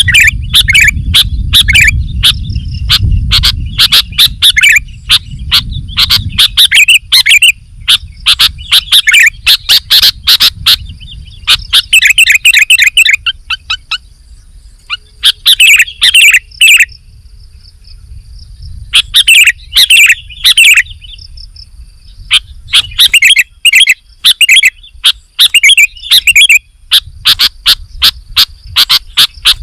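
Sooty-headed bulbul singing vigorously: bursts of quick, loud chirping phrases with short pauses between them.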